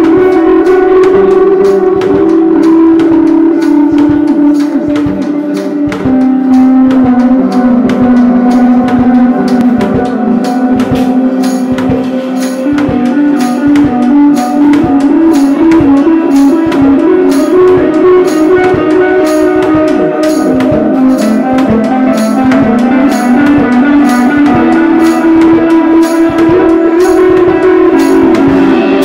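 Electric guitar and drum kit played live together: a sustained, effects-laden guitar melody that steps from note to note over steady drum hits.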